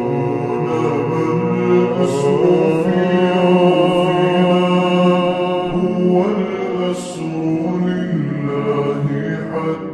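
Slowed, reverb-heavy nasheed vocals: layered voices holding long, slowly shifting notes in a wordless chant-like passage between sung verses.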